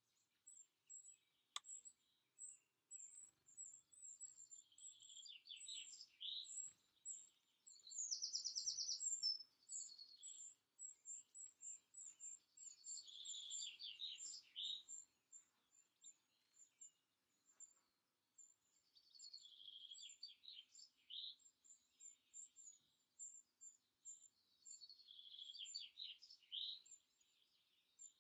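Faint garden birdsong: a songbird sings a short phrase ending in a quick run of notes about every six seconds, over a steady thin, high, rapid chirping. About eight seconds in, a loud, even, fast trill stands out, and there is a single sharp click near the start.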